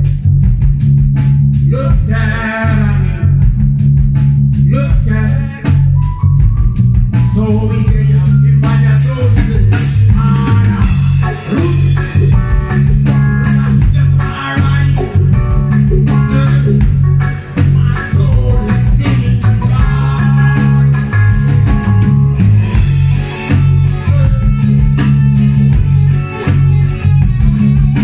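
Live reggae band playing loud, with a heavy bass line, drum kit and electric guitar, and a man singing at intervals.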